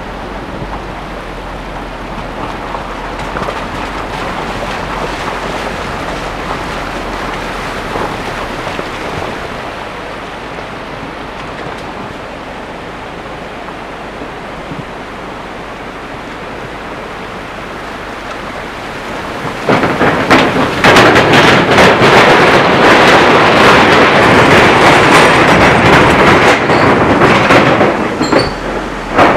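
Car driving over a rough, wet gravel road, heard from inside the cabin: steady tyre and road noise. About twenty seconds in it becomes a much louder rattling rumble with many clatters for around eight seconds, then eases off near the end.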